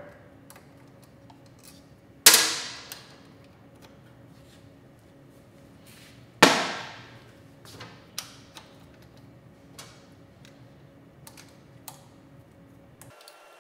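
Two sharp metallic clanks about four seconds apart, each ringing out for about a second, with lighter clicks and taps of hand tools and small metal parts between them.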